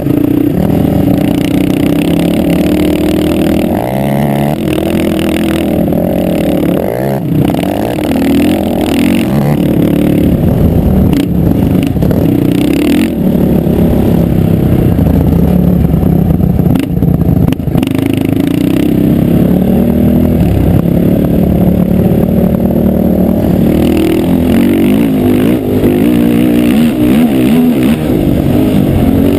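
450-class sport quad engines, a Honda 450 among them, idling close by with a few brief revs.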